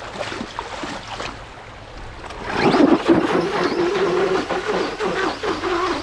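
Traxxas Slash 4x4 RC truck hydroplaning across river water: its electric motor whines at a steady, slightly wavering pitch over the hiss of spray thrown by the spinning tyres. It comes in loudly about two and a half seconds in.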